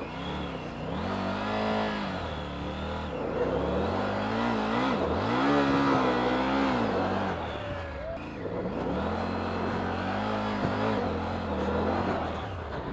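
Triumph Tiger 900 Rally Pro's three-cylinder engine revving up and down several times as the bike pivots in a full circle on loose gravel, the rear tyre spinning and spraying stones. The revs hold steadier near the end.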